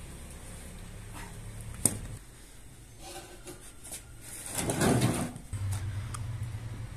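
Handling sounds as cloth-wrapped bread and a round metal tray are moved about on a stone floor: a sharp knock about two seconds in, then a longer rustling scrape near five seconds. A low steady hum follows.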